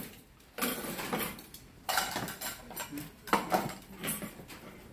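Eating utensils clinking and scraping against a steel bowl and plates while food is served, with several sharp clatters; the loudest comes past the middle.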